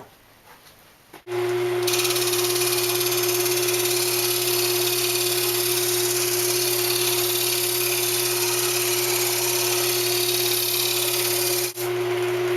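Wood lathe running with a steady motor hum, starting abruptly about a second in, and a skew chisel cutting the spinning hardwood with a steady high hiss to round the top of the grinder. There is a brief drop near the end.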